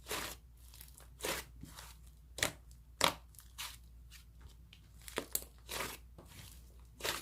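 Slime being squeezed and poked by hand, giving short sharp crackling pops at irregular intervals, roughly one a second.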